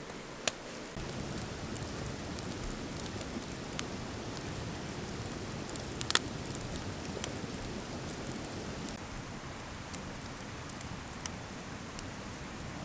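Wood campfire burning: a steady hiss with scattered sharp crackles and pops, a small cluster of pops about six seconds in.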